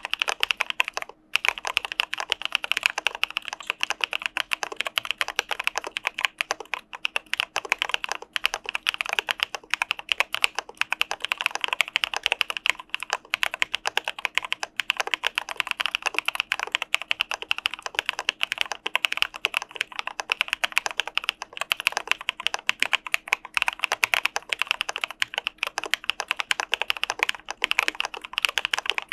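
Continuous fast typing on an Arisu Alice-layout mechanical keyboard fitted with Cà Phê Sữa Đá linear switches: a dense stream of key clacks with a brief pause about a second in.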